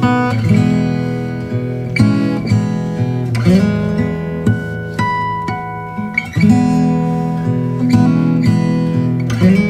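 Background music of a strummed acoustic guitar.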